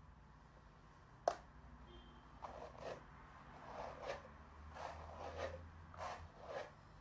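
One sharp click about a second in, then a run of short rasping strokes roughly every half second to second, from hands working through long wet hair and rubbing against a terry bathrobe.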